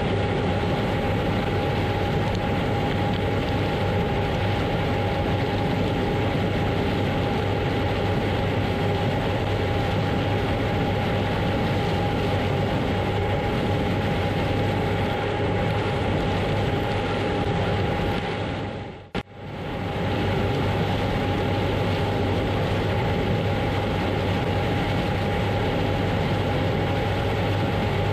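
Combine harvester running steadily while harvesting corn: an even machine drone with a constant whine and a low hum. It dips out briefly about two-thirds of the way through and comes back unchanged.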